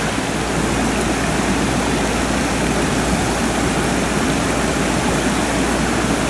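Steady rush of water pouring over a low weir below a dam, with a low rumble underneath.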